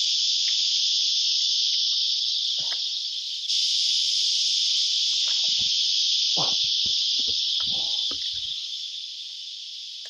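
Loud, steady chorus of cicadas, a dense high buzz that dips and surges back about three and a half seconds in, then fades near the end. A cluster of short low knocks and thuds sounds under it in the second half.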